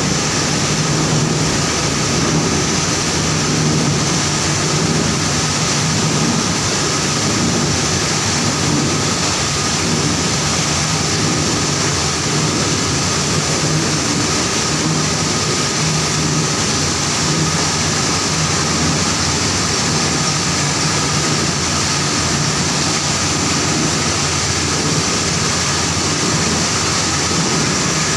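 Sugar-cane milling machinery running, a loud, steady mechanical din with a constant low hum that does not change.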